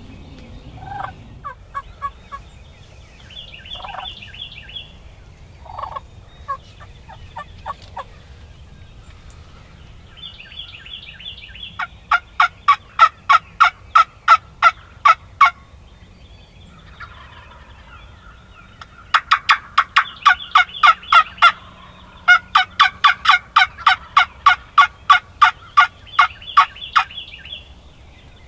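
Wild turkey yelping: three long runs of loud, evenly spaced notes at about four a second, after a few scattered softer calls.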